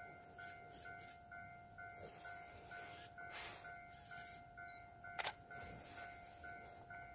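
Railway level-crossing warning alarm ringing faintly, a steady repeating ding at about two strokes a second, the signal that a train is approaching. A single sharp click a little after five seconds in is the loudest sound.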